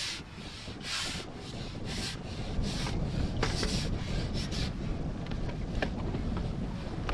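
A run of short scraping rubs, about one a second and fading out in the second half, over wind rumbling on the microphone.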